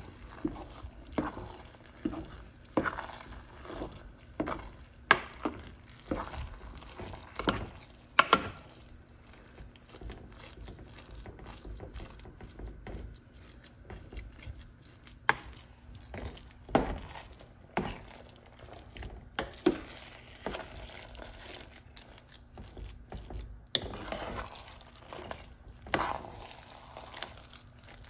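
A spoon stirring sticky glutinous rice through brown-sugar syrup in a stainless steel pot. The wet scrapes and knocks against the pot come irregularly, about one a second, and are fewer and softer midway.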